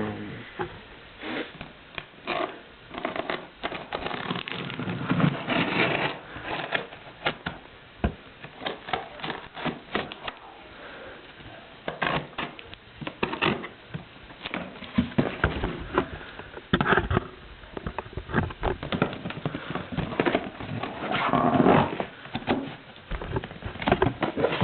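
A cardboard box being opened and its packaging handled: irregular rustling, scraping and rattling, with many small knocks and clicks.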